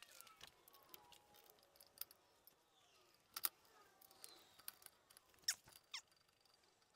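Faint metal clicks and clinks of a brake caliper being handled and fitted back over new brake pads onto a BMW E46's rear disc brake. The sharpest pair of clicks comes about halfway through.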